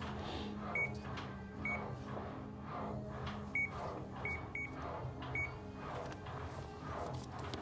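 Short, high electronic beeps, single or in pairs at irregular intervals, over a steady low hum and a rhythmic rushing about twice a second: a firefighter breathing through an SCBA face mask's regulator.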